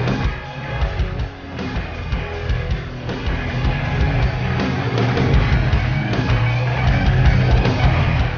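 Loud rock music with a heavy-metal sound: distorted guitar and drums.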